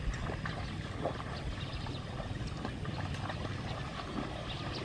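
Water sloshing and trickling, with many small irregular splashes over a low rumble.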